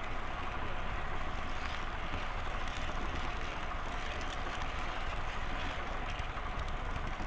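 Steady running noise of a model train heard from a camera riding on it: wheels rolling on the rails and the locomotive's motor, an even continuous rumble.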